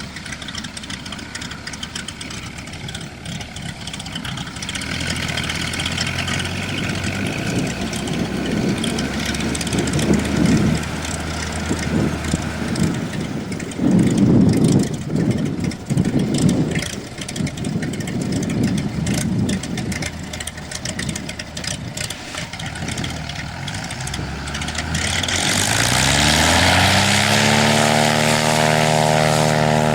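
Cessna Agwagon's piston engine and propeller running at low power under gusty noise, then about 26 seconds in the throttle opens and the engine note rises sharply to a steady high-power drone.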